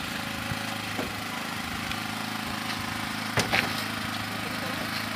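A small engine running steadily at idle. About three and a half seconds in there is a short clatter of knocks, as plastic chairs and gear are loaded onto a pickup's bed.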